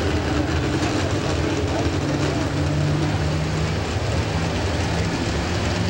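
Diesel super stock pulling tractor engine running hard at high revs, a heavy, steady engine note that steps up slightly in pitch about two seconds in, while the tractor sits hooked to the sled pouring smoke.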